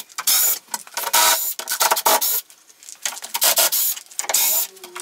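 Cordless drill/driver running in a series of short bursts with a high motor whine, each under a second, as screws are backed out to take up a melamine tabletop.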